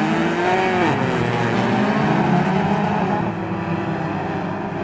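Several dirt-track stock car engines running together, their pitch rising and falling as they rev and ease off.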